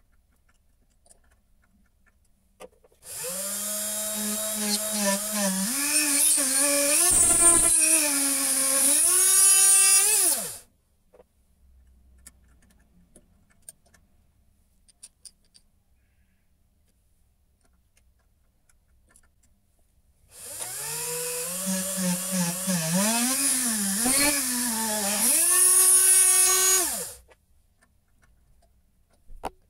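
Small electric drill motor running twice, each time for about seven seconds, as a twist drill bores a radial hole into a brass ring; its pitch rises and dips with the load of the cut, over a hiss of cutting noise.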